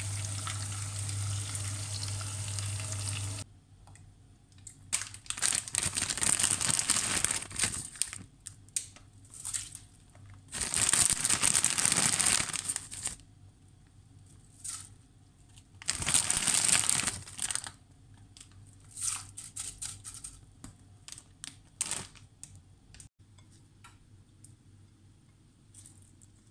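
Chicken sizzling in oil in a frying pan for the first few seconds, cutting off suddenly. Then loud crinkling, rustling noises come in several stretches of one to two seconds, with small crackles between them.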